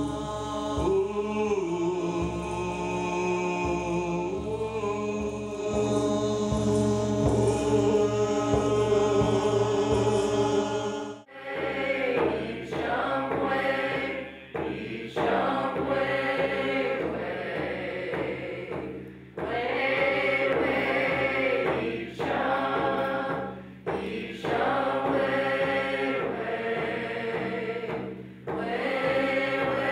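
Group chanting: a sustained, droning chant for about the first eleven seconds, then an abrupt change to a chant sung in repeated phrases a couple of seconds long.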